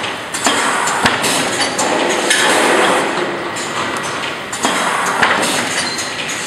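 Automatic PVC-and-paper blister card thermoforming machines running: a steady mechanical clatter with sharp metallic knocks and clanks, swelling louder every couple of seconds.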